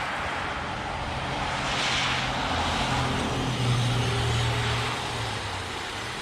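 Kyosho Blizzard 2.0 RC snow vehicle driving through snow on its twin brushless motors, a steady motor hum under track noise that gets louder around the middle and eases off near the end.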